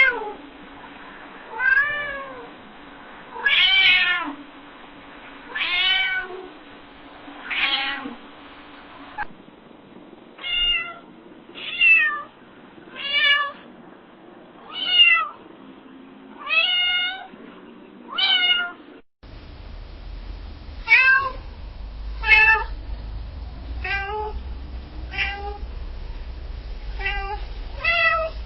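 A domestic cat meowing over and over, about one meow every one and a half to two seconds, each call rising then falling in pitch. It is three separate recordings joined end to end, with a low steady hum behind the last one.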